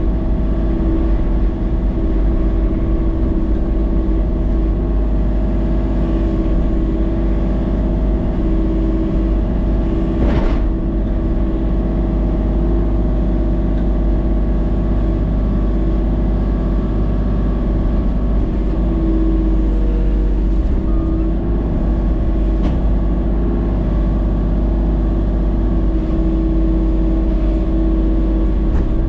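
A vehicle or machine engine running steadily at one speed, with a single sharp click about ten seconds in.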